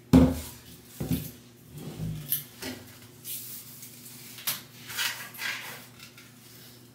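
Shower curtain being hung on a metal curtain rod: a knock right at the start, then scattered short scrapes and rustles as the fabric is pushed along the rod.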